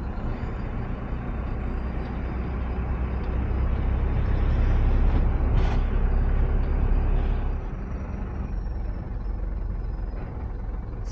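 Mercedes Vario diesel truck driving at low speed: steady engine and road noise that builds for a few seconds and then eases off, with a short hiss a little past the middle.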